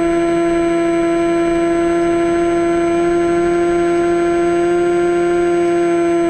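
Electric motor and propeller of an AXN Floater-Jet foam plane running at steady throttle in flight: a loud, even drone with a strong steady tone and many overtones.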